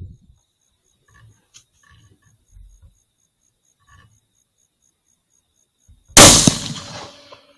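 A single rifle shot about six seconds in: one sharp, very loud crack that dies away over about a second.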